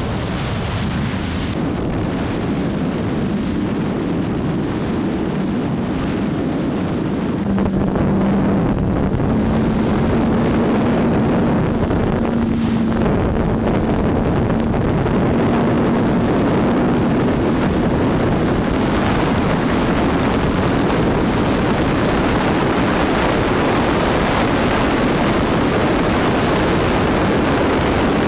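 Steady wind rush over the camera microphone, mixed with the constant inline-four engine drone of a Kawasaki motorcycle held near 200 km/h. About a quarter of the way in, the sound cuts from the Z900 to a Z1000SX. From there it is a little louder and has a faint steady engine hum.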